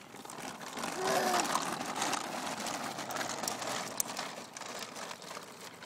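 Plastic baby walker's wheels rolling over asphalt, a steady rough noise that is loudest near the start and slowly fades. A brief voice sound about a second in.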